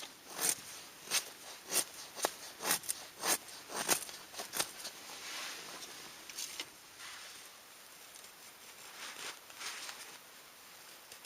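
A run of sharp knocks, about one every half second to second, for the first four and a half seconds, then softer rustling.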